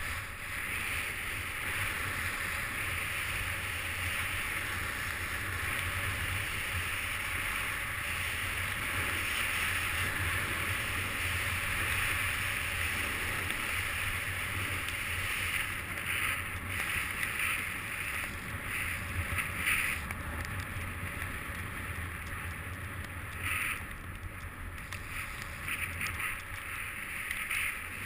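Steady rush of wind on a moving camera's microphone, mixed with the hiss of sliding down a snow slope. In the last third it comes and goes in short surges.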